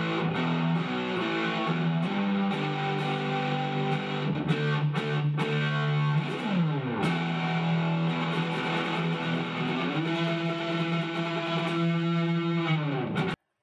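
Shelter USA SG-style electric guitar with twin humbuckers, played through an amp: held chords and single notes, with a chord sliding down the neck about six seconds in. Near the end a note bends up and is held, then the sound cuts off abruptly.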